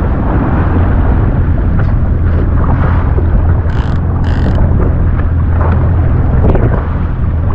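Jet ski engine running steadily with a low hum, under wind buffeting the microphone. Two brief high hisses come near the middle.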